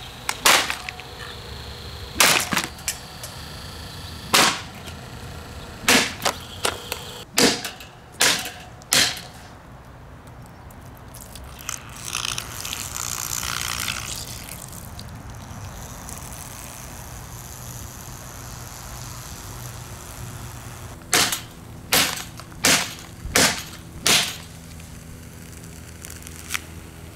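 A White-Westinghouse 12-inch table fan taking sharp smashing blows: about eight in the first nine seconds, then a cluster of six more near the end, over the steady low hum of the fan's motor running. A hissing rush comes a little past the middle.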